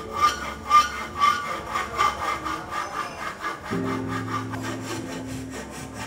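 Hand file rasping back and forth across the cut end of a bicycle fork steerer tube held in a cutting guide, about two strokes a second, fading out after about three seconds.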